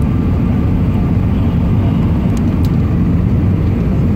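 Steady low rumble of engine and airflow noise heard inside the cabin of an Airbus A320 airliner descending on approach with its flaps extended.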